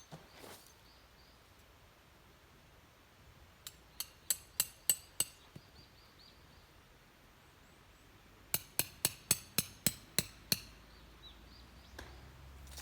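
Metal tent pegs being hammered into the ground: two runs of quick, ringing metallic strikes, about three to four a second, the second run a few seconds after the first.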